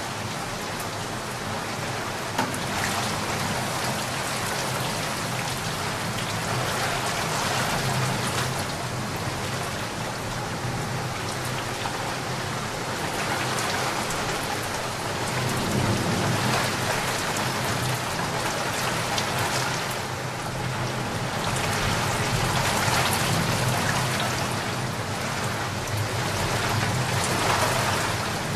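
Heavy rain on flooded streets with running floodwater, a dense steady hiss that swells and eases slowly, with a faint low hum underneath.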